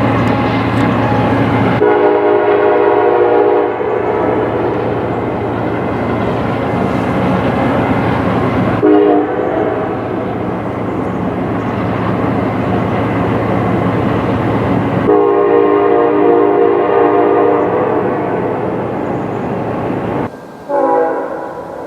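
Nathan Airchime multi-chime locomotive air horn sounding a chord in several blasts: a long one starting about two seconds in, a brief one around nine seconds, another long one from about fifteen seconds, and a short last blast near the end. A diesel locomotive's engine runs underneath the horn.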